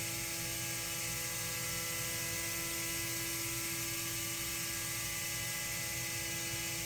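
CNC mill spindle running steadily, with a constant hiss of air-oil mist blowing on the tool, as a thread mill slowly cuts an M5 thread in 15% cobalt carbide. The machine's hum holds several steady tones without change.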